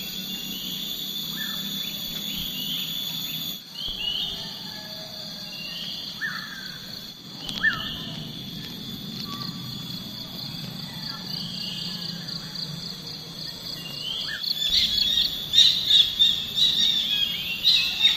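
Birds calling with short rising chirps every second or two over a steady high insect drone, the chirping growing busier and louder near the end.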